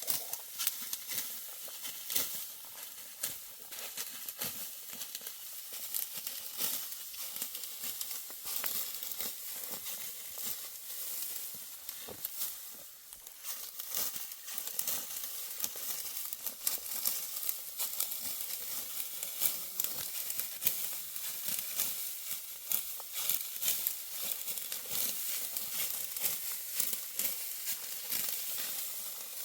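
Sickles cutting dry, ripe wheat stalks by hand: a steady, irregular crackle and rustle of snapping, tearing straw, with many short crisp strokes.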